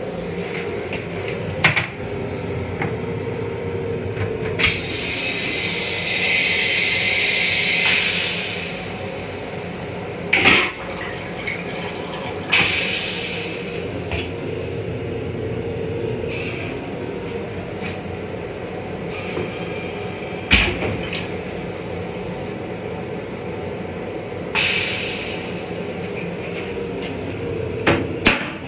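Toilet in a Long Island Rail Road M7 railcar flushing, a rush of water lasting a few seconds about five seconds in, over the steady rumble of the moving train. Short hissing bursts and sharp clicks come and go, and near the end the toilet lid clacks as it is lowered.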